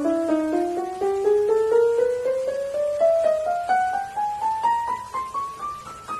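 Yamaha Piaggero NP30 digital keyboard playing a steadily rising scale of single notes, about four a second.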